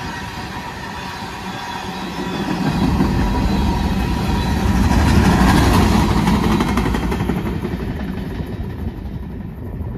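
A freight train of empty hopper cars rolling past: steady rumble and clatter of steel wheels on rail, swelling to its loudest mid-way and fading as the last car goes by near the end.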